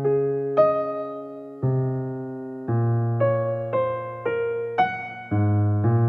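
Background music on a piano-like keyboard: notes and chords struck and left to ring and fade, about one a second at first and about two a second from the middle on.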